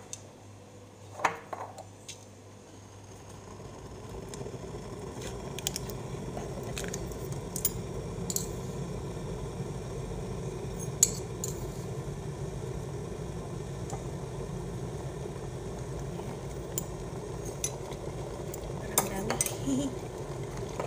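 Metal spoon clinking against a glass jar of instant coffee (Nescafé) and a ceramic mug as the granules are scooped out, in scattered light clicks. A steady low hum comes in a few seconds in, builds up over several seconds, then holds.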